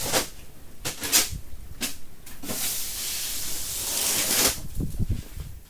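Blizzard wind gusting, with a hiss of wind-driven snow that comes in several short surges and then one long gust through the middle.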